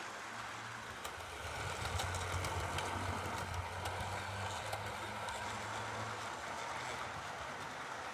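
Model railway train running past on its track: a low electric-motor hum with light clicks of the wheels over rail joints. It grows louder about a second and a half in and eases off after about six seconds.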